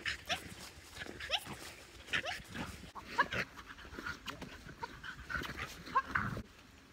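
Border collie whining and yipping in short, rising squeals, many times over, excited while playing and jumping during trick training.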